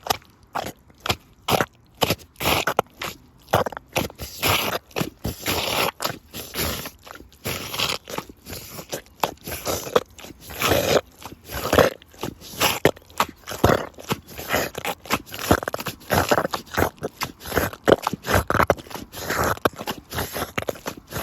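Rubber boots squelching and sucking in thick mud, a rapid irregular run of wet squelches as the boots are pressed in and pulled free.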